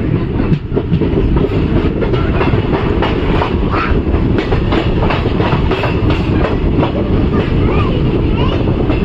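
Express train running on the track, heard from aboard: a steady heavy rumble with rapid wheel clicks over rail joints.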